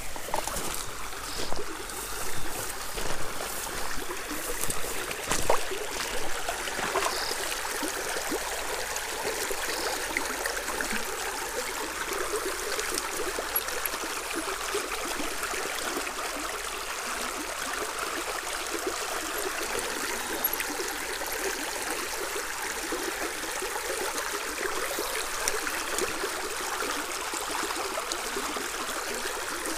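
Shallow stream running over a riffle: a steady rush and trickle of water. There are a few soft knocks in the first several seconds.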